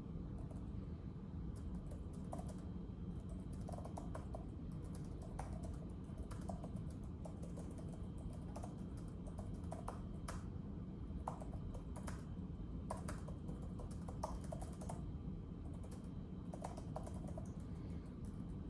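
Typing on a keyboard: irregular keystrokes in quick runs with short pauses, over a steady low background rumble.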